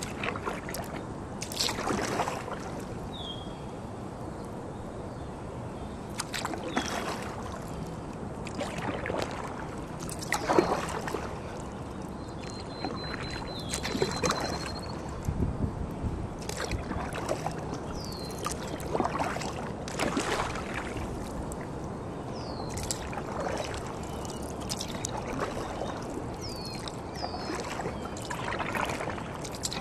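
Sea kayak paddle strokes: the blades dip and pull through the water at irregular intervals of a few seconds, with splashes and dripping water between them.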